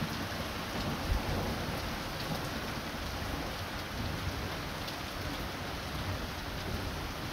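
Hail and rain falling, a steady hiss with scattered small ticks of hailstones striking the ground and paving, and a low irregular rumble underneath.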